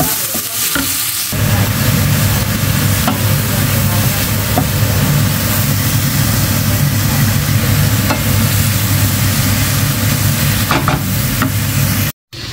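Prawn and vegetable filling sizzling in a frying pan as a wooden spatula stirs it, with occasional scrapes and taps on the pan. A steady low hum joins the sizzle about a second in, and the sound drops out briefly near the end.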